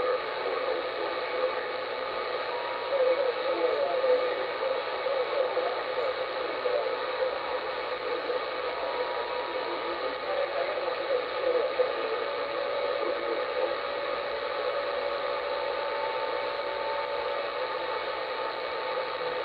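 Uniden 980SSB CB radio receiving on channel 38 lower sideband: steady static hiss with thin heterodyne whistles and faint, garbled sideband voices coming through the noise.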